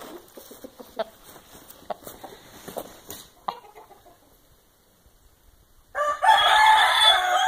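Giro gamecock crowing once, loudly, about six seconds in, after a few seconds of soft scattered clicks and rustles.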